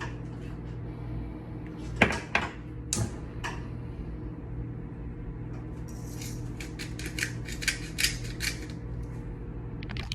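Salt grinder being twisted over a pot: a few separate clicks, then a run of quick, dry ratcheting clicks from about six seconds in, over a steady low hum.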